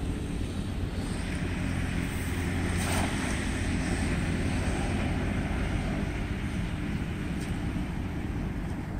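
A cast net splashing down onto a shallow muddy pond about two to three seconds in, over a steady low rumble.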